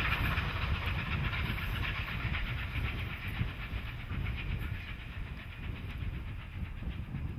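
Steam-hauled passenger train rolling past and away: carriage wheels clicking over the rails with steam hissing from the locomotives, the whole sound slowly fading as the train recedes.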